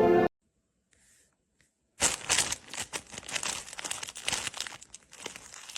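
Brief music ending just at the start, then about two seconds of near silence, then irregular crinkling and rustling of crumpled material, a dense run of small crackles.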